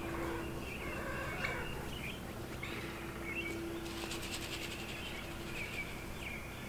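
Birds chirping: short, high chirps scattered through, over a faint steady hum.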